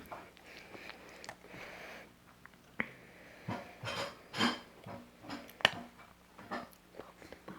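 Irregular light clicks and knocks of small objects being handled, some ringing briefly.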